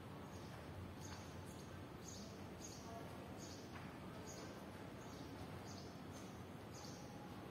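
Faint outdoor ambience: a steady hiss with short, high-pitched chirps repeating irregularly, about once or twice a second.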